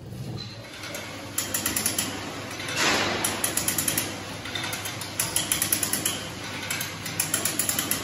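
A hand ratchet lever on the drive of a steam rotary snow blower clicking in four quick runs, about two seconds apart, as the steam engine is slowly turned over by hand without steam. A brief louder rasping sound comes about three seconds in.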